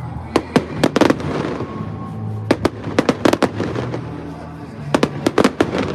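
Fireworks going off: sharp bangs and crackling pops in irregular clusters, with a dense burst about three seconds in and another near the end.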